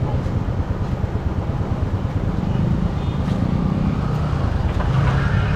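Motorcycle engine running steadily with road and traffic noise.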